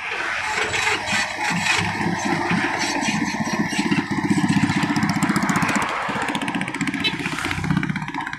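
Komatsu PC200 hydraulic excavator's diesel engine running under load as the machine travels on its tracks. The sound swells about halfway through and eases near the end.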